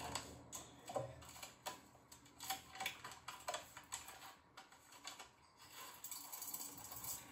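Irregular light taps and clicks, as of hands handling small objects by the bath tray.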